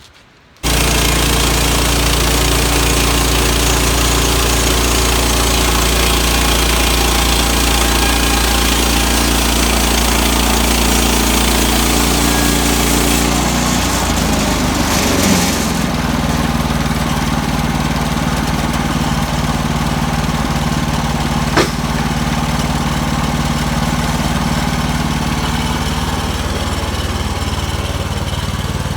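Gas engine of a Woodland Mills portable sawmill running steadily at speed. Its note changes about halfway through, and a single sharp click sounds later on.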